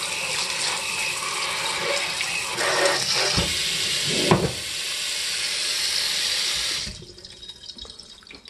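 Kitchen tap water running onto stacked dishes in a stainless steel sink, a steady splashing rush with a couple of knocks a little past three and four seconds in. The water shuts off suddenly about seven seconds in, leaving faint drips.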